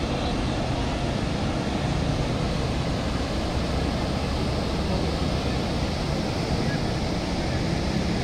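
Flooded Bagmati River rushing past in spate: a steady, even rush of fast brown floodwater with no breaks.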